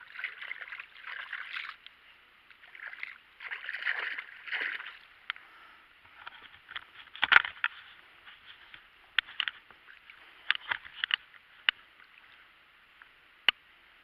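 Shallow river water splashing and sloshing in irregular bursts as a pike is held in it by hand and released. After that come several sharp, separate clicks and knocks, the loudest a little past the middle.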